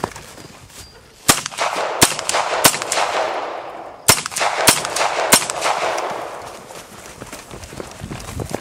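Beretta U22 Neos .22 pistol firing six shots in two strings of three, about two-thirds of a second apart, with a short pause between the strings.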